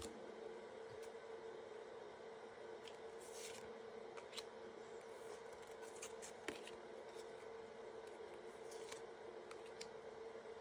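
Faint handling of Topps baseball trading cards: soft sliding rustles and scattered light clicks, over a steady low hum.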